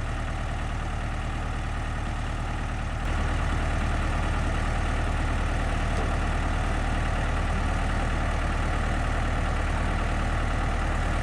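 Massey Ferguson 255 tractor engine running steadily, getting louder about three seconds in.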